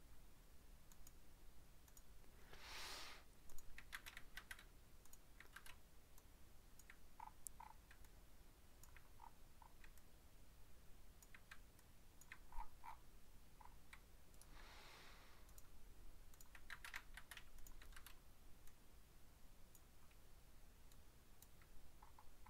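Faint clicking of a computer keyboard and mouse: short runs of keystrokes and several paired mouse clicks, with two soft rustling swishes, one about three seconds in and one about fifteen seconds in.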